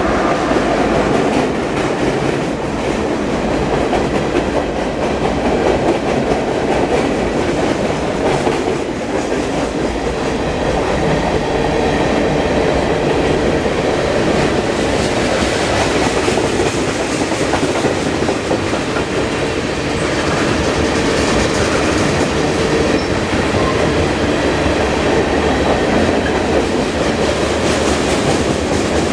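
Cars of a long mixed freight train rolling past, loud and steady, with steel wheels clicking and rattling over the rail joints.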